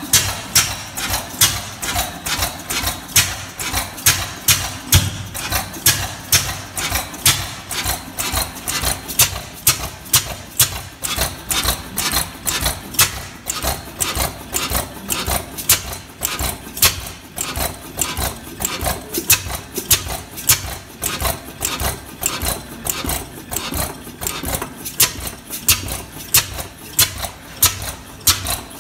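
Crossley JJ horizontal stationary engine running steadily, with a sharp, even beat repeating about one and a half times a second.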